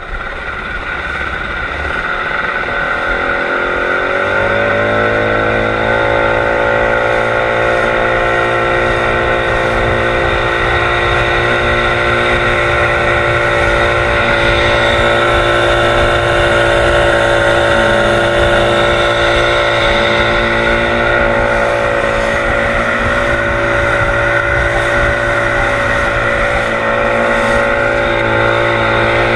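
Outboard motor of a small wooden fishing boat speeding up over the first five seconds or so, then running at a steady cruising speed, with the rush of the wake along the hull.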